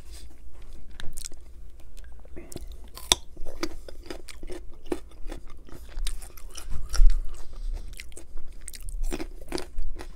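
Close-miked chewing of food, with many short wet crackles and crunches. In the second half a ranch-dipped baby carrot is bitten and crunched, the loudest crunch coming about seven seconds in.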